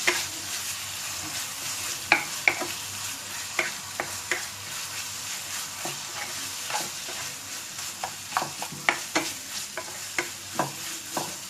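Chicken mince and chopped vegetables sizzling in a frying pan while being stirred, a steady hiss with irregular sharp knocks of the spatula against the pan, coming more often near the end.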